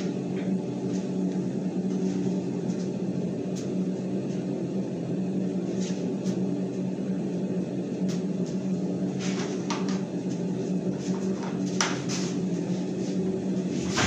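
Steady hum of a kitchen range-hood exhaust fan, with a few light clinks and knocks of cookware scattered through.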